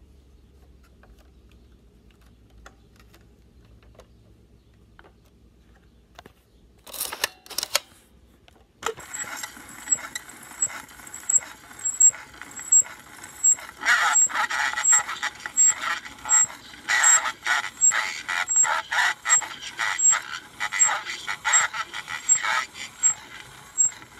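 GAF Talking View-Master stereo viewer playing the recorded soundtrack of its reel through its small built-in speaker. The sound is tinny and choppy, with a regular tick just under twice a second from the turning sound disc. It starts after a few quiet seconds and a short clatter about seven seconds in.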